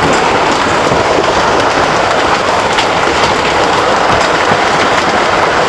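Hailstorm with heavy rain: a dense, steady roar of hailstones and rain pounding down, with scattered sharper hits.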